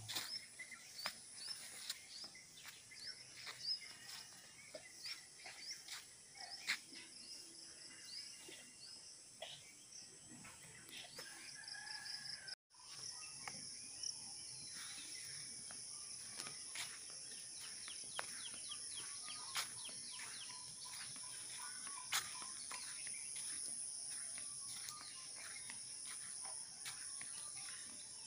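Rural outdoor ambience: small birds chirping in quick short calls, then, after a brief cut a little under halfway, a steady high-pitched drone of crickets or other insects with occasional bird calls over it.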